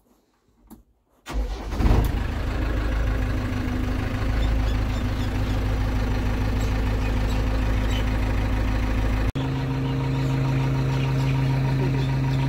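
JCB 3DX backhoe loader's diesel engine started with the key: it catches about a second in with a brief surge, then settles into a steady idle. Near the end the idle is heard from outside the machine, with a steadier low hum.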